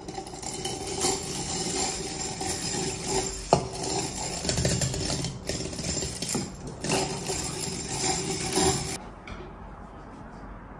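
Hand-cranked rotary egg beater whisking eggs in a glass bowl, cranked steadily with one sharp knock about a third of the way in, and stopping about nine seconds in.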